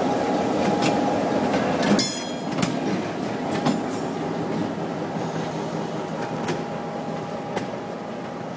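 Diesel locomotives rolling slowly through a rail yard: engines running at low throttle, wheels clicking over rail joints with a faint steady wheel squeal, and a short sharp hiss of air about two seconds in. The sound grows gradually quieter as the units move off.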